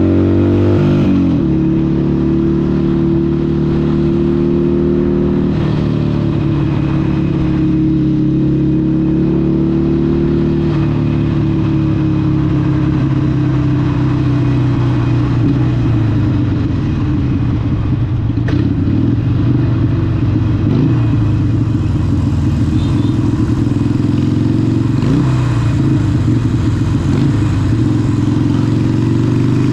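Harley-Davidson Sportster 883 SuperLow's air-cooled 883cc Evolution V-twin running through a Vance & Hines exhaust under way. The engine note drops about a second in, holds steady for several seconds, then rises and falls with the throttle through the second half.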